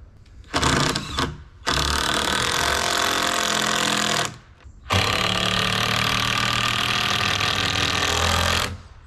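A power tool running in three runs, the last two of a few seconds each, starting and stopping sharply with short pauses between.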